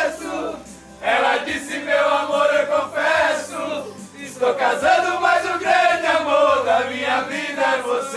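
A group of voices singing a song together, with long held notes; the singing drops away briefly about half a second in and again around four seconds.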